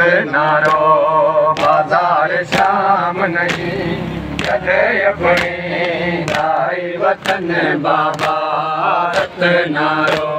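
Men's voices chanting a noha, a Shia lament, in chorus, with sharp chest-beating slaps (matam) keeping time about once a second.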